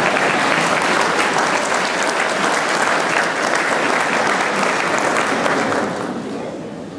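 Audience applauding: dense clapping that begins to die away about six seconds in.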